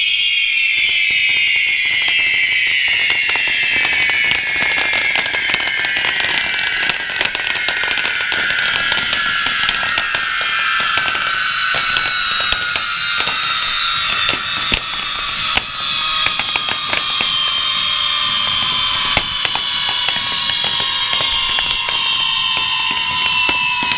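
Several handheld spark-fountain fireworks burning at once with a loud whistling hiss, the whistles sliding slowly down in pitch, over constant crackling and popping.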